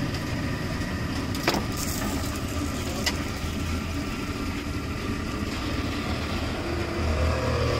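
Roadside street noise: a steady low rumble of road traffic, with two sharp clicks about a second and a half apart near the start.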